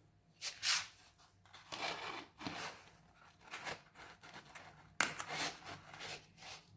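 Paper sheet material being torn or crinkled by hand: a series of short, irregular tearing bursts, with a sharp one about five seconds in.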